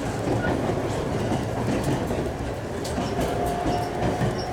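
Interior running noise of an ET127 series electric train under way: a steady rumble of wheels on rails and the car body, heard from inside the passenger car. A thin steady tone joins in about three seconds in.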